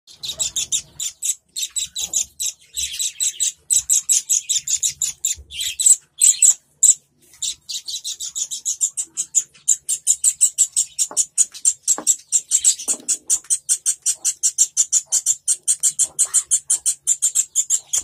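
Fledgling songbird chick giving loud, high, rapid chirps, about five a second almost without pause, typical begging calls while it is hand-fed.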